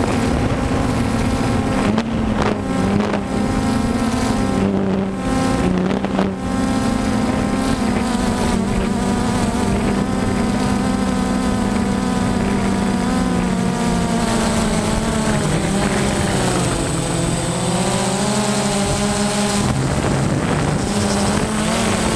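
DJI Phantom quadcopter's motors and propellers buzzing steadily, recorded from a camera on the drone, with strong wind noise on the microphone. The pitch drops for a few seconds about three quarters of the way through, then rises back.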